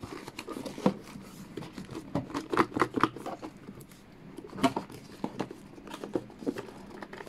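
Hands handling and opening a small white cardboard box: irregular scrapes, taps and rustles of cardboard, with a louder cluster about two to three seconds in and another near five seconds.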